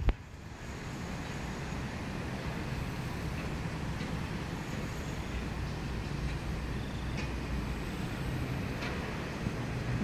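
Steady low outdoor background rumble, with a few faint, short, high-pitched ticks scattered through it.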